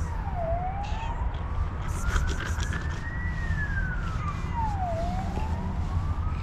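Emergency-vehicle siren wailing: one tone that rises slowly over about three seconds, falls more quickly, then starts to rise again. Under it runs a steady low rumble, with a few faint clicks.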